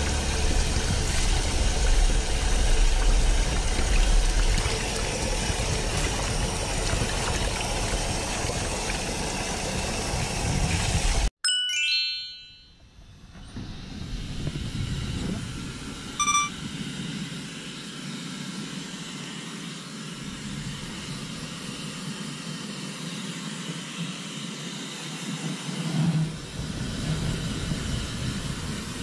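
Tap water running steadily over a kitten being rinsed in a sink, cutting off abruptly about eleven seconds in. A bright chime rings at the cut, and a single ding follows about five seconds later. After that comes a quieter steady hiss.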